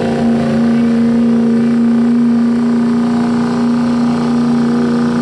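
Street-class diesel pickup truck engine held wide open under heavy load as it drags a weight-transfer sled, running loud at a steady high pitch.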